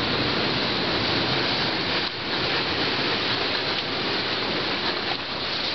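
Steady rushing of sea waves washing over a pebbly beach, with a brief lull about two seconds in.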